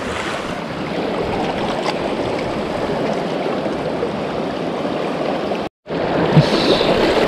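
River current rushing steadily over a riffle, an even wash of water noise that cuts out for an instant near the end.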